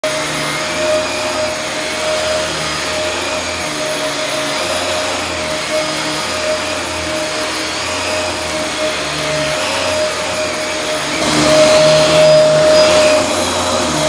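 Dyson DC24 ball upright vacuum cleaner running steadily with a constant whine as it is pushed back and forth over a rug, growing louder about eleven seconds in.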